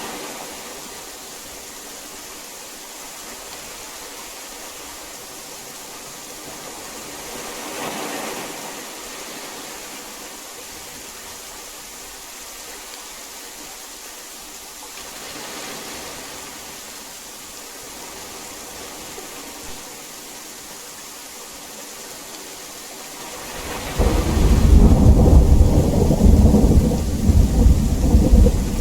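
Steady heavy rain with a soft swell every few seconds. About three-quarters of the way through, a loud, deep rumble of thunder breaks in and keeps rolling.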